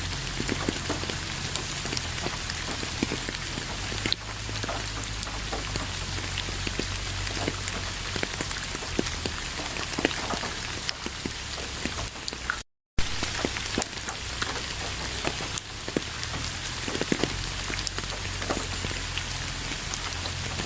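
Steady rain falling, with the sharp ticks of individual drops landing close by over a continuous hiss. The sound cuts out completely for a split second about two-thirds of the way through, then carries on unchanged.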